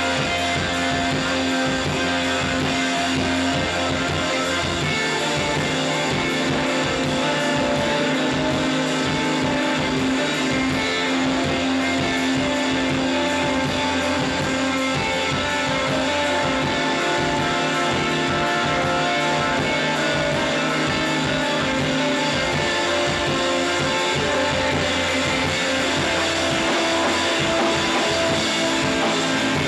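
Shoegaze rock band playing live: electric guitars with long held notes over bass guitar and drums.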